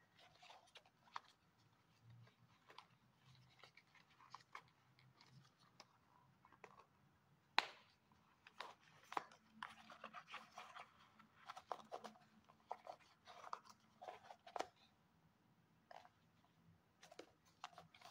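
Cork sandal being flexed and turned in the hands: faint crackling and scratching of the cork straps and footbed against the fingers, with scattered small clicks and one sharper click about seven and a half seconds in.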